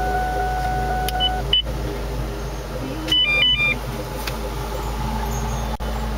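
Electronic beeps from a Valentine One radar detector: a steady tone that stops about a second and a half in, then a couple of short beeps and, about three seconds in, a quick run of alternating two-pitch beeps. A car engine idles steadily underneath.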